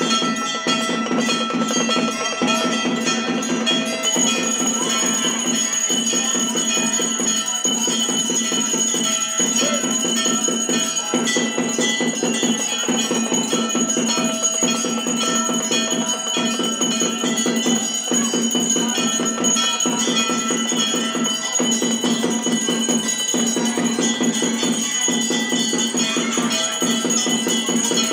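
Temple bells clanging in rapid, continuous strokes, their ringing tones held throughout, with a few brief breaks.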